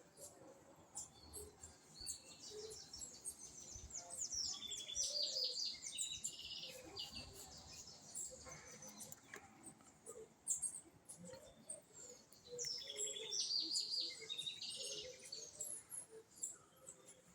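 Birds chirping and singing: quick runs of high, rapid chirps and trills, busiest for a few seconds soon after the start and again about two-thirds of the way through.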